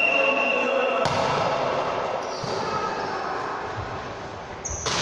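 Game sounds in a sports hall during an indoor ball game: a ball bouncing amid a steady hall din of players and onlookers. A brief high steady tone sounds at the start and stops about a second in.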